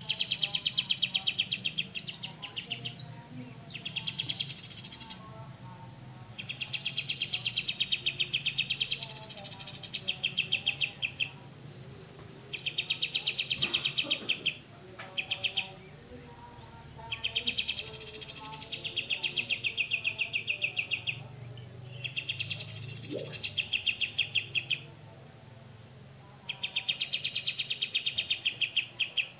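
Cucak jenggot (grey-cheeked bulbul) singing its besetan: fast buzzy rattling trills, each one to four seconds long, repeated about seven times with short gaps, and short rising whistled notes mixed into some of them.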